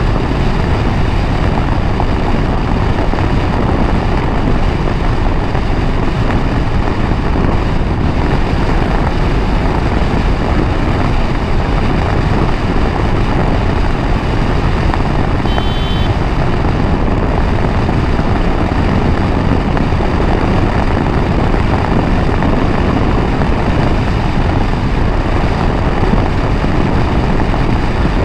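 Steady wind rush over the microphone with engine and road noise from a KTM 390 Adventure motorcycle being ridden at speed. A short high beep sounds about halfway through.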